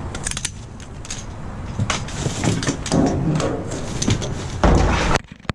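Rummaging in a dumpster: a reach grabber clacking and trash rustling as a small electric fan is hooked out by its cord, with a louder knock and scrape about a second before the end.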